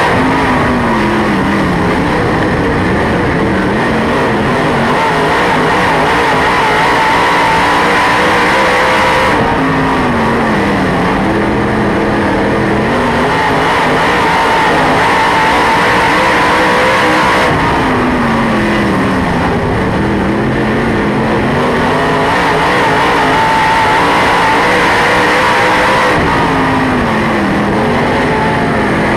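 Dirt late model race car's V8 engine, heard from inside the cockpit at racing speed. It runs hard, and its pitch drops as the throttle is lifted into each corner, then climbs again as it accelerates out, about every eight to nine seconds.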